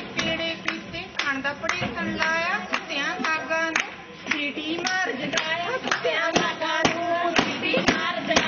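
Women singing Punjabi boliyan, folk couplets, with group hand-clapping keeping a steady beat of about two claps a second.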